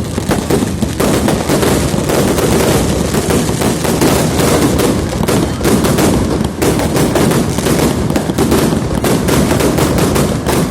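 Fireworks and firecrackers going off in a dense, continuous barrage: many sharp bangs and cracks a second, overlapping into a rapid crackle over a low rumble.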